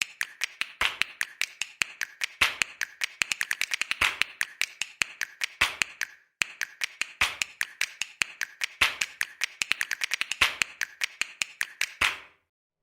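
Rapid clatter of mechanical keyboard keystrokes, with a heavier stroke about every 1.6 s. The same six-second passage plays twice, with a short gap between.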